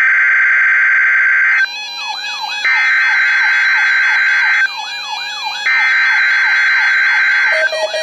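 Weather alert radio sounding its alarm for a Required Weekly Test on NOAA Weather Radio. A loud, steady high beep tone is held about two seconds at a time and broken twice by about a second of rapid falling chirps. Near the end it changes to a lower tone.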